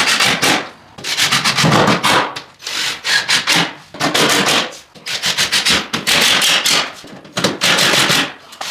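Repeated rough rubbing strokes across a surface, roughly one a second, each a harsh hiss with short gaps between.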